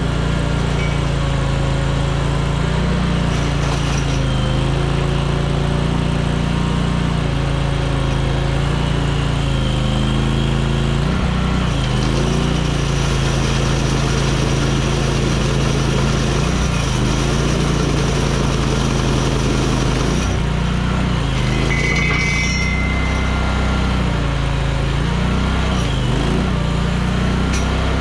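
Chinese mini skid steer's engine running steadily, its pitch wavering slightly up and down, while it drives a hydraulic flail mower.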